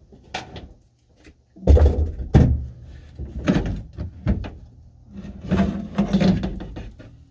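Car sunroof assembly being worked loose and pulled down out of the roof: a run of clunks and rattles of metal and plastic, heaviest about two seconds in, then a burst of knocks and scraping as the panel comes free.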